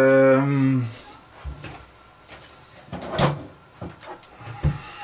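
A man's voice holding one drawn-out vowel for about a second, then several knocks and clunks, like a kitchen cupboard being opened and closed and things being handled.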